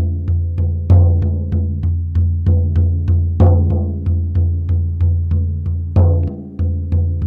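Hand-held frame drum struck with a beater in a steady shamanic journey beat, about three deep booming strikes a second, with a heavier strike every two and a half seconds or so.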